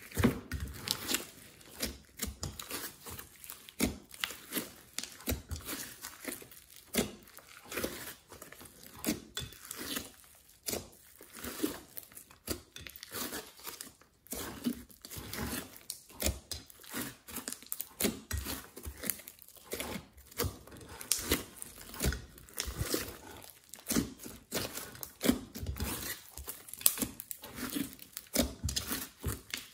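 Glossy slime mixed with clay and glitter being kneaded and squeezed by hand in a glass dish, giving a stream of irregular clicks and crackles.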